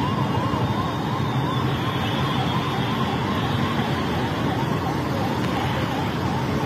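Emergency-vehicle siren wailing in a fast, even up-and-down wobble, about three swings a second, over a steady rush of background noise.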